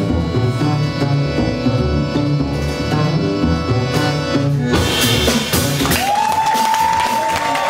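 Live klezmer-jazz quartet playing: accordion chords over a plucked double bass line, then about two-thirds in, drums and cymbals crash in and a long high note is held above them.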